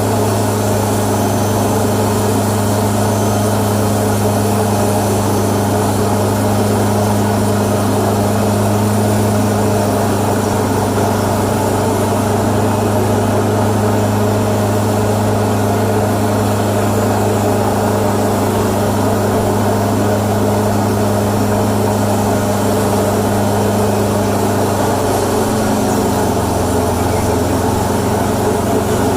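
Aircraft tow tractor's engine running steadily under load with a constant low hum, dropping slightly in pitch near the end as the engine slows.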